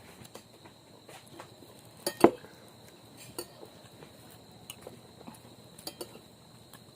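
Spoon and fork clinking and scraping on a plate while eating, a scatter of light clicks with one louder clink about two seconds in.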